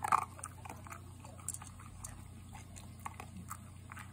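American Cocker Spaniel eating from a ceramic bowl: irregular crunching and clicking as it chews and noses the food, with the loudest crunch right at the start.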